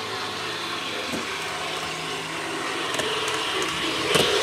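HO-scale model bullet train running along the layout track: a steady electric-motor whir with wheel noise on the rails, growing louder as it approaches and swelling about four seconds in as it passes close.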